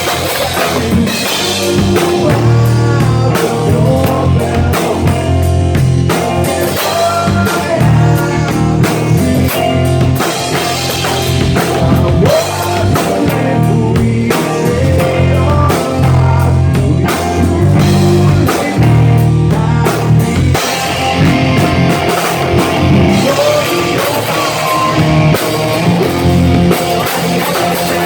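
Live rock band playing an instrumental passage of a song, with guitar and a driving drum kit over a heavy low end.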